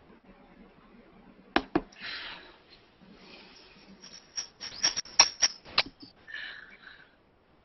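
Irregular sharp clicks and short rustling noises, with a quick run of louder clicks about four to six seconds in.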